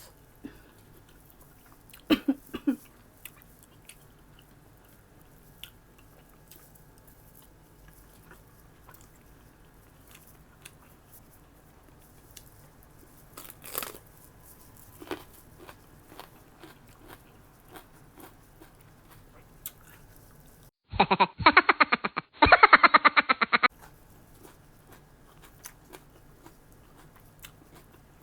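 Close-up eating sounds from oxtail stew: scattered wet smacks, crunches and clicks of chewing. Near the end a loud, rapidly pulsing pitched sound lasts about three seconds.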